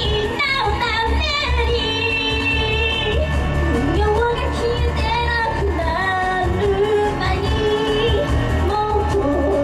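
A young woman singing a J-pop song live into a handheld microphone over pop music with a steady bass beat. About two seconds in she holds one long note.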